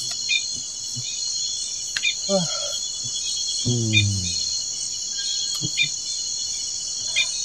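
Night chorus of crickets and other insects: a steady high-pitched chirring with a pulsing trill beneath it. A brief low voice with falling pitch is heard about four seconds in, and a few faint clicks.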